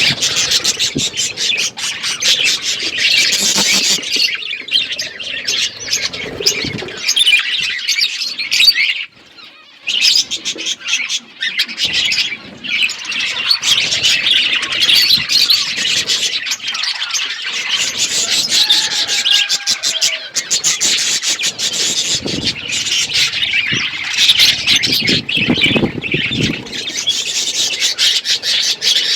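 Several budgerigars chattering and chirping nonstop, a dense high warbling full of quick sharp calls, with a brief lull about nine seconds in.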